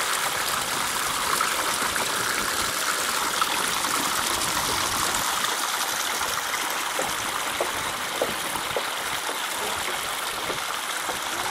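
Water running steadily through a channel of an aquatic-plant purification bed, with light trickling and gurgling.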